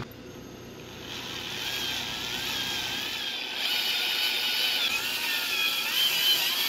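A thread tap cutting into a bolt hole in an aluminium motorcycle cylinder head, with a high whine that wavers up and down, grows louder past the middle and rises near the end. The hole is being re-tapped to take an M6x1 Helicoil insert, repairing a stripped thread.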